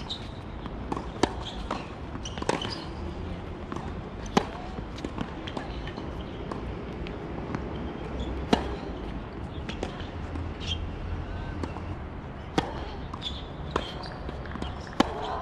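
Tennis rally on a hard court: sharp racket-on-ball strikes and ball bounces every few seconds, the loudest when the near player hits, over a low steady outdoor rumble.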